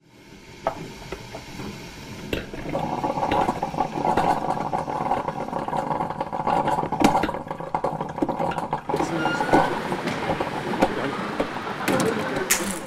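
Catering-tent background sound: a steady machine hum and noise that fades in, with scattered clinks and knocks of coffee-making equipment being handled.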